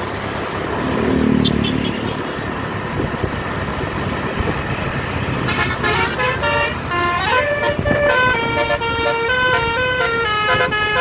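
A bus's basuri multi-tone air horn (telolet) plays a quick stepping melody of clear notes over road and engine noise, starting about halfway in.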